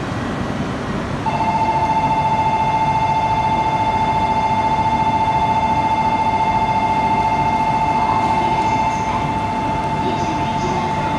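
Shinkansen platform's electronic departure bell starts about a second in: one steady, trilling ring held on without a change of pitch, the signal that the train is about to leave. Station crowd hubbub runs underneath.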